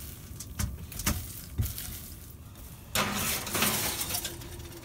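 A silicone spatula spreading sliced almonds on a foil-lined sheet pan, with a few light taps, over a low steady hum. About three seconds in comes a louder rustling, scraping noise lasting about a second as the pan goes onto the oven rack.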